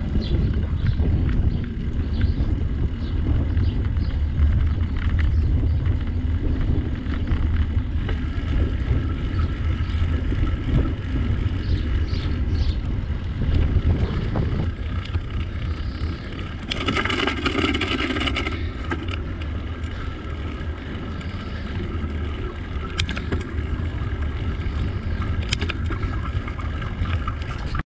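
Riding noise from a bicycle: wind buffeting the microphone as a heavy low rumble, with tyre noise and small rattles and clicks. About seventeen seconds in, a brief higher ringing with several steady tones lasts about two seconds.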